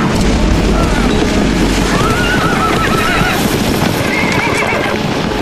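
A body of horses galloping at a charge, a dense drumming of hooves, with horses whinnying about three times over it.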